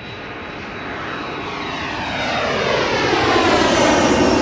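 F-16 fighter jet taking off in afterburner: a jet roar that builds steadily in loudness, with a sweeping, phasing whoosh as the jet passes close by.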